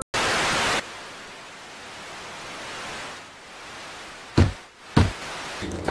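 Television static: a loud burst of hissing noise for under a second, then a fainter steady hiss. Near the end come two short thumps about half a second apart.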